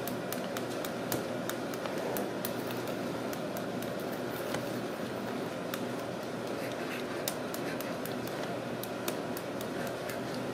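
Irregular light clicks and taps as a hand fiddles at the end of a cardboard tube on a wooden floor, over steady background noise.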